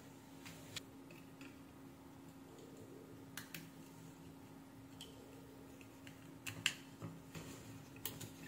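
Faint, scattered light clicks and ticks of a soldering iron tip and tweezers against a circuit board while a surface-mount IC is desoldered and lifted off, over a low steady hum.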